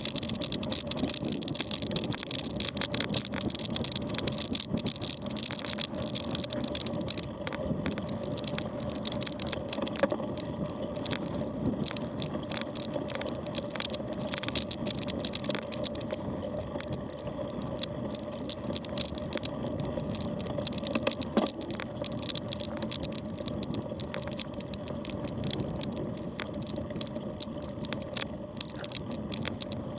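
Mountain bike rolling over a rutted dirt-and-gravel track, heard from a camera riding on the bike: steady tyre rumble with a low hum, broken by frequent sharp clicks and rattles as the bike jolts over stones and ruts.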